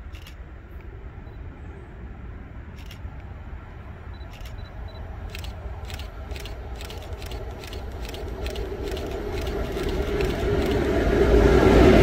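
Freight train hauled by a ČD Cargo electric locomotive approaching and growing steadily louder. A run of sharp clicks comes faster and faster as it nears, and a heavy rolling rumble builds near the end.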